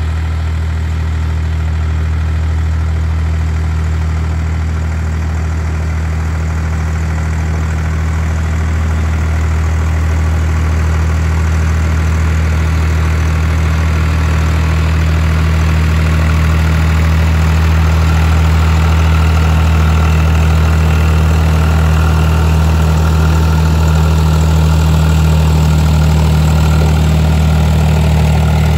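Massey Ferguson 245 tractor engine running steadily while pulling a tiller through garden soil. It grows gradually louder through the second half as the tractor comes closer.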